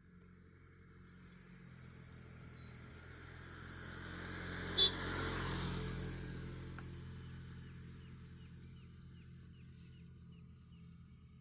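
A vehicle passing on the road, its engine and tyre noise building for about five seconds to a peak just past the middle, then fading away slowly. A single sharp click comes at its loudest moment.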